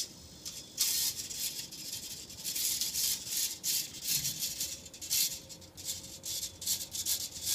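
Small hobby servos whirring in short, irregular bursts as they turn back and forth, following a flex sensor being bent.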